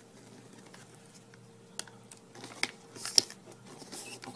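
A sheet of origami paper being folded in half and creased flat by hand. It is quiet at first, then gives several sharp crinkles and taps, the loudest about three seconds in.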